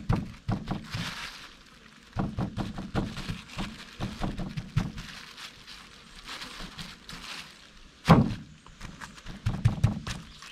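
Hands seasoning whole red snapper on a plastic bag: irregular soft thuds and pats as the fish are pressed, rubbed and turned, with the plastic crinkling. One sharper knock about eight seconds in is the loudest sound.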